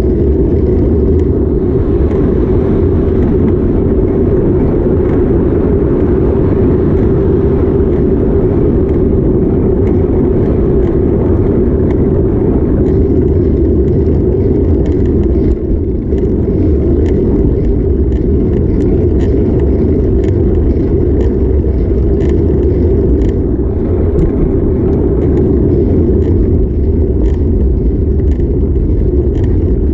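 Steady low rumble of wind and road noise on the microphone of a bicycle riding through city traffic, with many small clicks and rattles over it.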